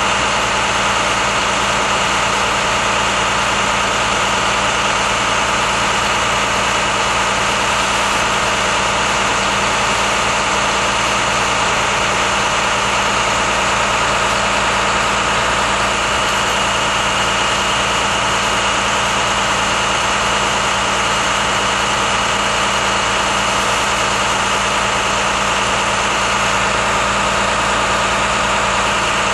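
Large engine idling steadily with an even, unchanging hum and a faint steady whine on top.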